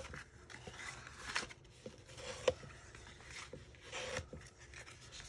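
Bone folder rubbing along the creased score lines of cardstock, burnishing the folds: soft scraping strokes with a couple of sharp taps, one at the start and one about halfway through.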